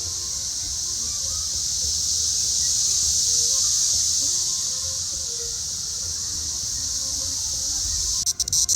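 Chorus of periodical cicadas: a steady high-pitched drone that swells slightly and eases off, breaking into rapid choppy pulses near the end.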